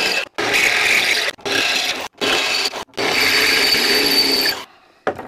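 Einhell cordless drill boring into a steel bar, run in several short bursts of about a second with brief stops between, over a steady motor whine. The drill stops near the end, with one last short burst.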